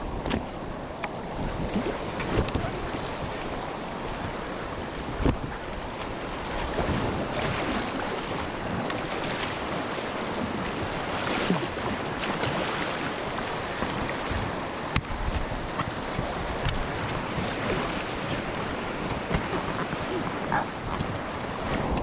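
Fast river current rushing and splashing around inflatable packrafts, with wind noise on the microphone. A few brief, sharper splashes stand out.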